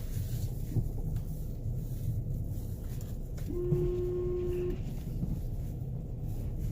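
Low rumble inside a car's cabin as it creeps and slides down a snow-covered road under hard braking. About halfway through, a steady pitched tone sounds for about a second.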